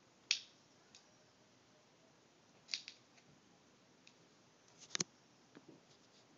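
A few short, sharp clicks and taps over a faint background: one near the start, a quick pair about halfway, and a cluster about five seconds in that ends in a duller knock, with fainter ticks between.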